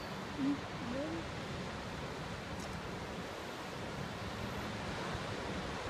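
Steady rushing noise of wind and of the tidal bore's breaking wave front rolling up the river, with a couple of faint voice sounds about half a second in.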